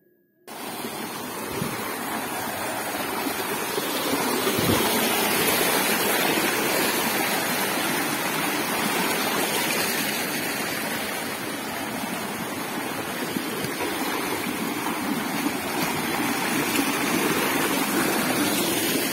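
Shallow hill stream running over rocks: a steady rush of water that starts about half a second in.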